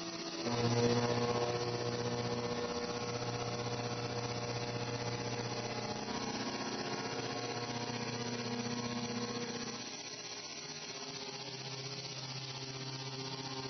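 Haas VF-2 vertical machining center milling an aluminium block, the spindle-driven cutter giving a steady pitched cutting tone. The tone steps up in level about half a second in, then changes and drops slightly about ten seconds in.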